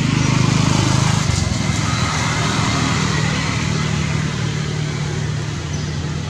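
A small engine running steadily, a continuous low hum under a hiss, a little louder in the first second.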